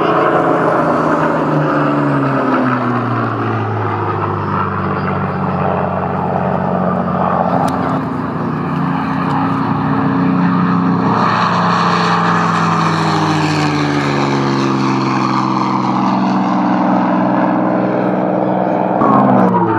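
Propeller-driven V-12 piston warbird engines in flight: a Supermarine Spitfire passing with its engine note dropping in pitch as it goes by. It is followed by a P-51 Mustang's Packard Merlin V-12 running hard as the fighter takes off and climbs away.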